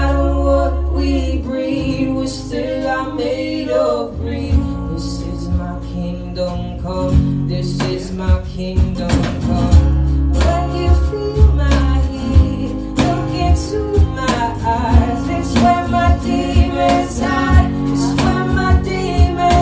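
A man singing a slow pop song to acoustic guitar accompaniment, with sharp percussion hits keeping a beat from about eight seconds in.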